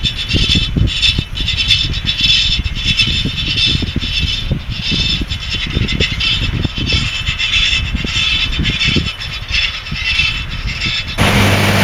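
Massey Ferguson 8690 six-cylinder diesel tractor working a Väderstad Top Down TD 400 cultivator through stubble: the engine under load mixed with the scraping and rattling of the discs and tines in the soil, a rough low rumble that surges unevenly. Near the end it changes abruptly to a closer, steady engine sound.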